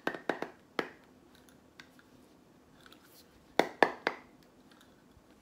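Handling noise from unboxing: sharp clicks and knocks of packaging and items being picked up and set down, a quick cluster at the start and another about three and a half seconds in.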